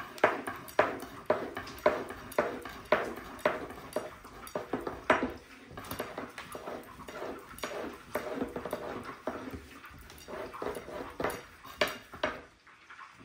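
Long thin rolling pin (oklava) rolling and knocking on a floured wooden tabletop as yeast dough is rolled out into a thin sheet, a rhythmic clack about twice a second with a soft rolling rustle between.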